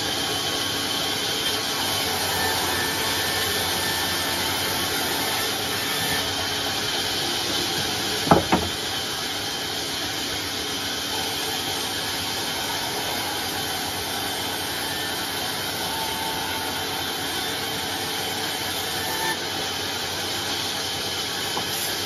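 Large vertical sawmill band saw running steadily as it rips a teak log into planks, a continuous even noise of the blade cutting through the wood. Two sharp knocks sound close together about eight seconds in.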